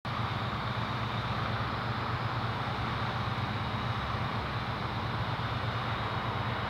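Steady outdoor background drone: a constant low hum under an even hiss, unchanging throughout with no distinct knocks or events, of the kind given off by distant traffic and site machinery.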